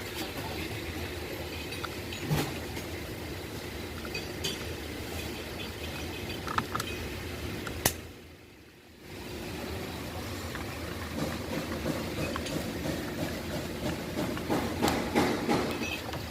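Scattered clicks, light knocks and clinks of parts and hand tools being handled during work on a steering column, over a steady background noise; the handling gets busier in the last few seconds.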